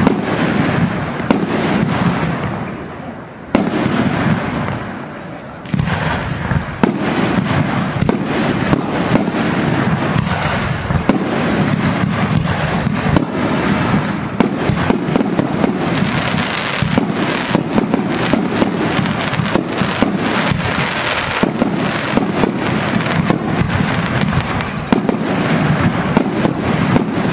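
Fireworks display: aerial shells launched and bursting in quick succession, a steady run of bangs, with a brief quieter spell about three to six seconds in.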